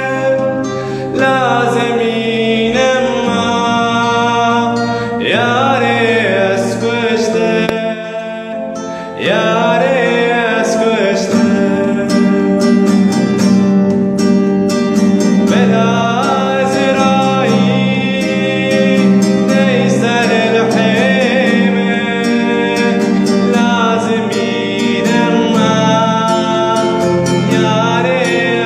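A man singing a Kurdish song with long, wavering held notes, accompanying himself on a strummed acoustic guitar.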